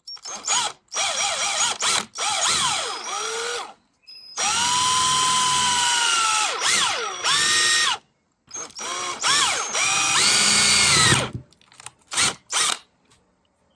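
Electric drill boring a 5/16-inch hole through the side of a Toyota Tacoma shift knob, running in three long bursts with its motor pitch sagging and recovering as the bit loads up. A few short blips of the trigger come near the end.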